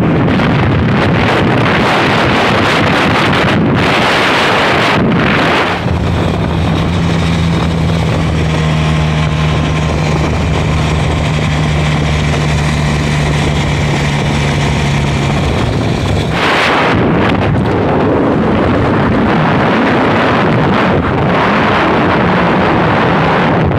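Wind buffeting the microphone on a moving Benelli motorcycle, with the engine's steady hum coming through at cruising speed from about six seconds in until about fifteen seconds.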